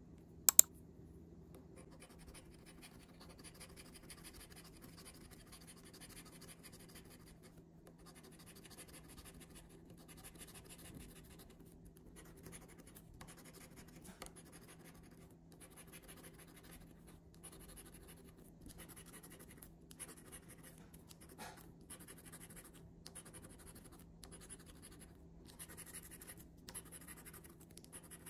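A coin scratching the coating off a $20 scratch-off lottery ticket in short, repeated stop-and-go strokes, with brief pauses between runs. A single sharp click comes about half a second in.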